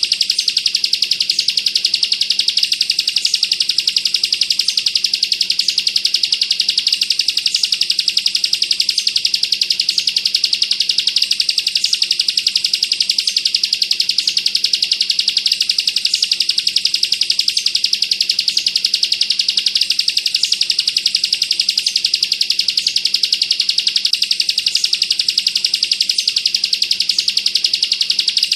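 Ciblek kristal (bar-winged prinia) singing a rapid, unbroken 'bren' trill: a very fast rattle of high notes that never pauses. Short higher chirps break in about once a second.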